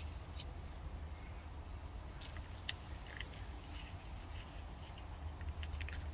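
Hands scratching and rustling in the dry mulch and soil of a garden bed: faint, scattered small scratches and ticks over a steady low rumble.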